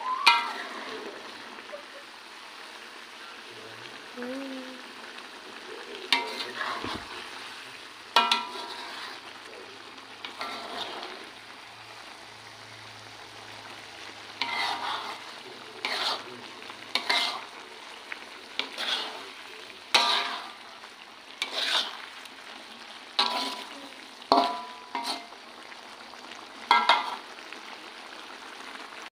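A spatula scraping and stirring through squid frying in a pan of thick dark sauce, over a steady sizzle. The scrapes come every second or so in the second half.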